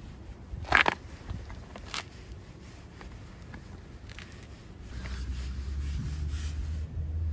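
A hand stroking and rubbing a tabby cat's fur right by the phone's microphone: scratchy rustling, with a short loud rasp about a second in and a click at about two seconds. A low rumble comes in at about five seconds.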